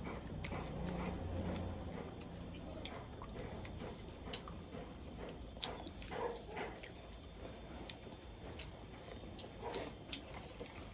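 A person chewing and biting food close to the microphone, heard as scattered crisp crunches and wet mouth clicks.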